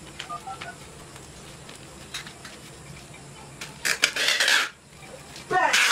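Packing tape being pulled off its roll while a parcel is taped up: two loud ripping screeches, one about four seconds in and another near the end, with small clicks and handling rustles before them.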